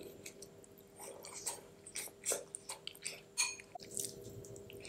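Close-miked chewing and wet mouth smacks of someone eating creamy macaroni and cheese off a spoon, heard as a string of short, irregular clicks over a faint steady hum.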